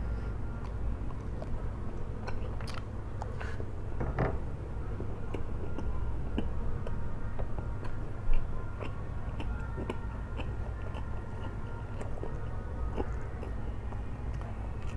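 Close-miked eating sounds of a person chewing flat rice noodles: many small wet mouth clicks over a steady low hum, with one sharp knock about eight seconds in.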